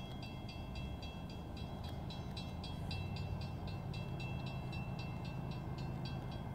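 Railroad grade-crossing bell dinging evenly, about four strokes a second, over the low rumble of an approaching train that grows slowly louder.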